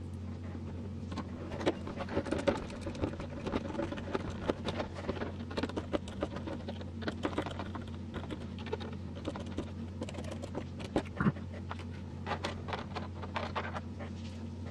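Hard plastic RC truck body parts being handled and screwed together: scattered small clicks, taps and rattles as the pieces are positioned and a small screwdriver drives screws into them, over a steady low hum.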